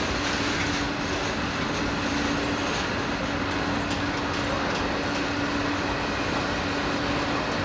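Freight cars of a passing train rolling by close at steady speed: an even rumble and clatter of steel wheels on the rails, with a steady hum underneath.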